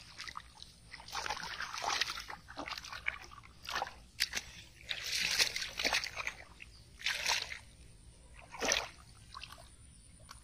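Splashing and sloshing in ankle-deep muddy water as a carp thrashes and hands grab at it: several separate splashes a second or two apart.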